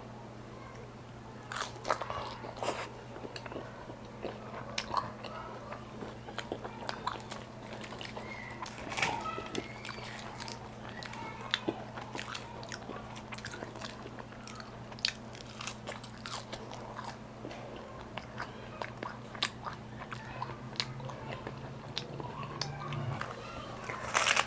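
Close-miked chewing and biting, with many irregular wet clicks and crisp crunches, over a steady low hum.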